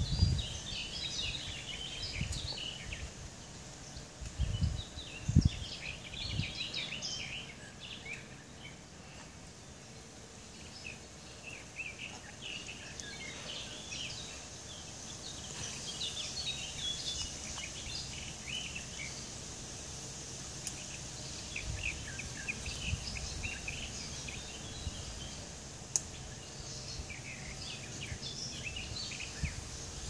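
Small wild songbirds chirping and twittering throughout in a leafy woodland edge, with a few brief low thumps, the loudest about five seconds in.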